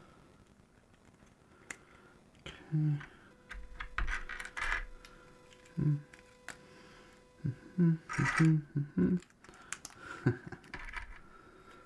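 Plastic LEGO bricks from the 1985 Fire Patrol Copter set clicking and clattering as they are handled and pressed together. Scattered sharp clicks, busiest about eight seconds in.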